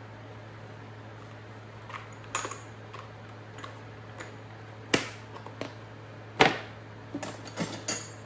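Hand tools and their cases being handled and set down: scattered clicks and knocks of metal and plastic, with two louder knocks about five and six and a half seconds in and a quick cluster near the end, over a steady low hum.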